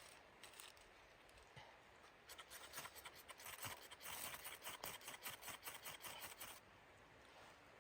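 A quick run of scraping, rasping strokes lasting about four seconds, starting a couple of seconds in and stopping suddenly.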